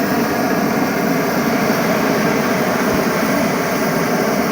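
Hot-air balloon inflating equipment running with a steady, even roar as a balloon is topped up with air.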